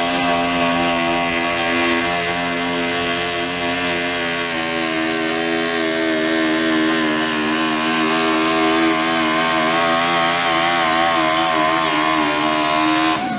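Heavily modified riding lawn mower engine held at full throttle while it pulls a weighted sled, a loud, steady engine note that wavers slightly in pitch.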